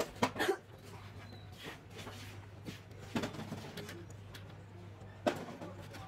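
Hard plastic electrical socket bodies being handled by hand, giving a few separate light clicks and knocks, over a steady low hum.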